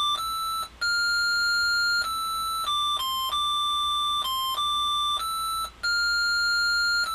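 Arduino Mega playing an RTTTL ringtone tune as plain electronic beeps: a simple melody, one note at a time, stepping up and down in short and longer notes, with a brief break about half a second in and again near six seconds.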